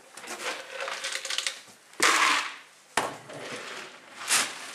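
Crunching and rustling in a bucket of dry feed as a child buries her face in it and munches fast, like a horse gobbling its food. Loud scrunching bursts come about two and three seconds in.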